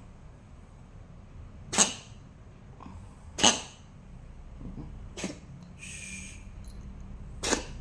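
Domestic cat coughing in a fit: four short, sharp coughs about one and a half to two seconds apart.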